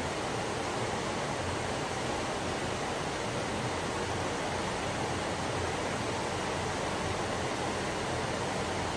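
Steady rain, an even hiss without breaks.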